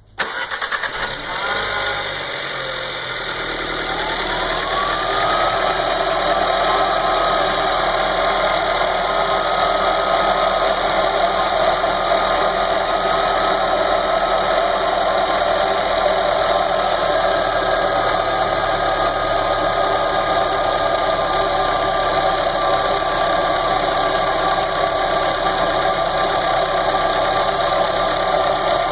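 Volkswagen Golf Mk7's 1.4 TSI turbocharged four-cylinder petrol engine starting and then idling steadily. A thin whine rises in pitch about four seconds in and then holds steady over the idle. This is the strange engine noise the owner reports as a fault.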